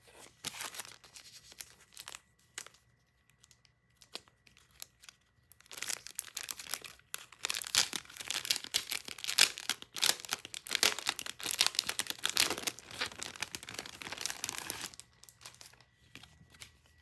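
Packaging being torn open and crinkled by hand: a few scattered rustles at first, then steady tearing and crinkling from about six seconds in until about two seconds before the end.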